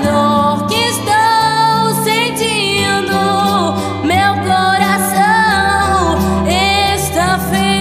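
Female voice singing a Portuguese gospel worship song with vibrato over band accompaniment, with a steady bass line underneath.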